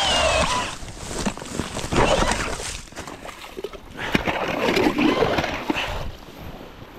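Powered ice auger's motor whining, its pitch rising slightly before cutting off about half a second in, as the bit breaks through the ice. Then come irregular scraping and sloshing sounds in two stretches, typical of clearing ice and slush from the fresh hole.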